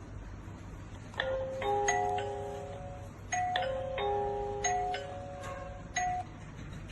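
Electronic doorbell chime playing a short melody of clear ringing notes, starting about a second in, played through twice, with one last note near the end.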